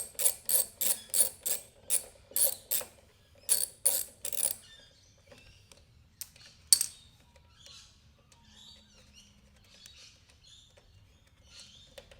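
Socket ratchet clicking in quick, even strokes, about three a second, as a 10 mm bolt is backed out; it stops about four and a half seconds in. Then faint handling sounds of the loosened part, with one sharp knock.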